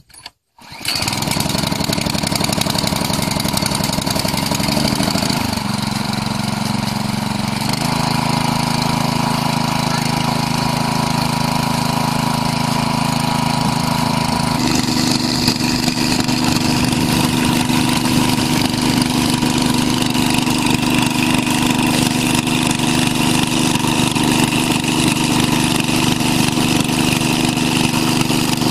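Small petrol engine on a portable water pump starting about a second in and then running steadily under load as it pumps water out through a discharge hose. Its pitch shifts in steps a few times.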